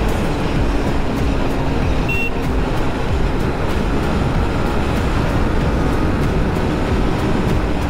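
Steady wind and road noise on the riding camera's microphone as a KTM RC390 motorcycle cruises at highway speed, its single-cylinder engine running underneath.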